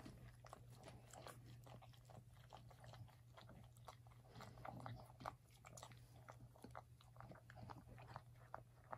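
Faint wet mouth sounds from a cocker spaniel and her newborn puppies: scattered little smacks and clicks of licking, chewing and suckling, over a low steady hum.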